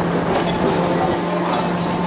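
Hong Kong double-decker electric tram running along its rails, heard from on board: a steady rumble and rattle of the moving car mixed with wind noise, over a steady low hum.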